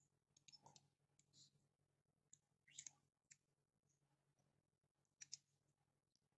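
Near silence with a few faint, short clicks from a Lenovo P70 smartphone's housing and parts being handled and pried apart.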